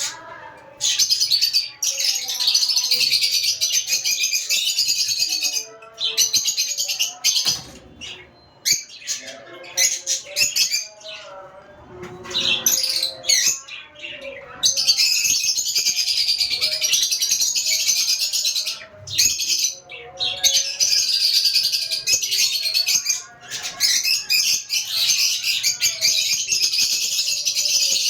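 Dense chattering and chirping of a mixed aviary colony of lovebirds, budgerigars, finches and Java sparrows, in long loud stretches broken by short pauses.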